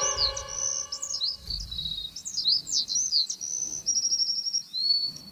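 Rat squeaking sound effect: a run of short, high chirping squeaks that glide up and down, with a quick trill about four seconds in and a last squeak that rises and then holds.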